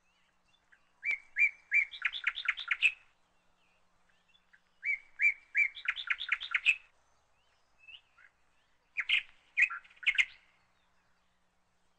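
A small songbird singing. It gives two phrases, each a few evenly spaced notes followed by a quick run of notes, then a shorter, choppier phrase near the end.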